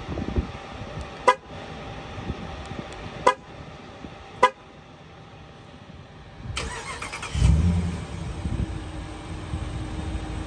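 Three short horn chirps from a 2022 Dodge Durango R/T as it is remote-started from the key fob. About seven seconds in, its 5.7-litre Hemi V8 cranks, fires and settles into a steady idle.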